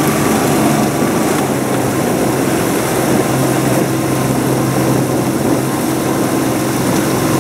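Outboard motor of a coaching launch running steadily at cruising speed, a constant engine drone.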